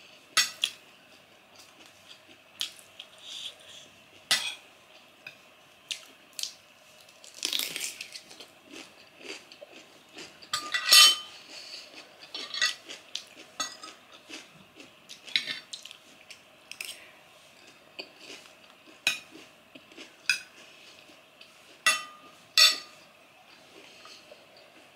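Metal spoon and fork clinking and scraping on a ceramic plate while eating, in scattered separate clicks. A short rustling crunch comes about seven seconds in, and the loudest clink, which rings briefly, about eleven seconds in.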